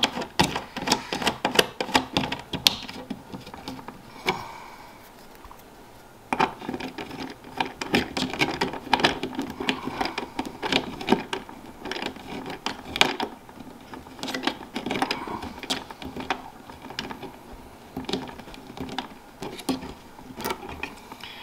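Fingers hand-tightening threaded CPU cooler standoffs onto the backplate pins of a motherboard: irregular small clicks and scratches, with a quieter pause about four to six seconds in.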